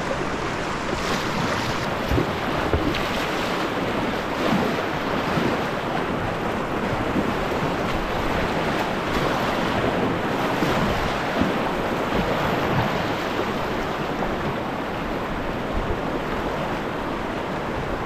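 River rapids running high, a steady rush of whitewater around the kayak, with kayak paddle strokes splashing in the water. Wind buffets the helmet-mounted microphone.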